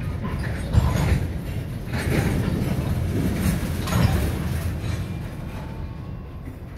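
Freight train of covered hopper cars rolling slowly past, a steady low rumble with a few wheel clacks over the rail joints. It fades gradually near the end.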